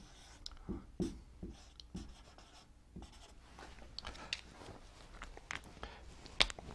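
Dry-erase marker writing on a whiteboard in short strokes, each with a soft tap. Then come a few light clicks and taps, the sharpest one near the end.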